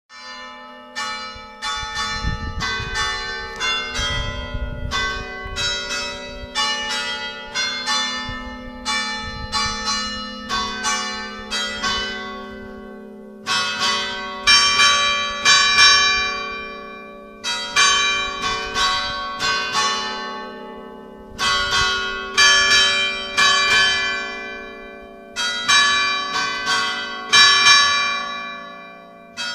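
Ring of five church bells tuned in G, cast in 1756, 1834 and 2017, pealing for the festive Mass. Strokes follow each other about twice a second over long-held humming tones. From about 13 seconds in they come in groups of several strokes with short pauses between.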